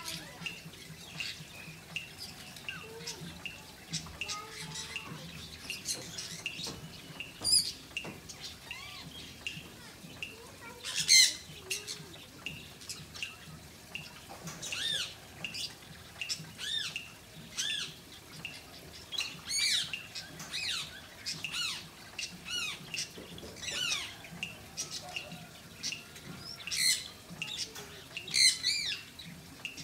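Pet birds calling: a steady run of short chirps, with a few louder, harsher squawks scattered through.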